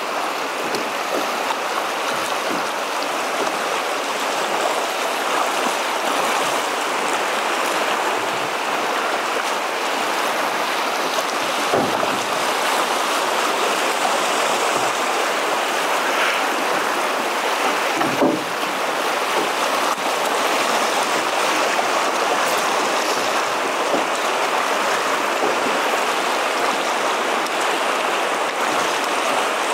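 Steady rush of river water running through riffles past a drift boat, with two short knocks, one near the middle and one a few seconds later.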